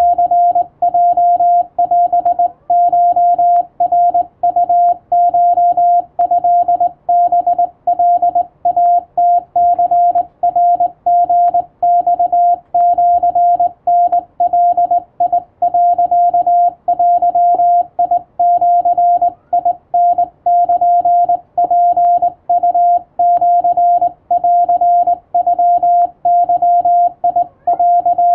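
Japanese (wabun) Morse code sent by hand on a straight telegraph key, heard as a steady mid-pitched sidetone beeping on and off in quick dots and dashes, with faint clicks at each keying.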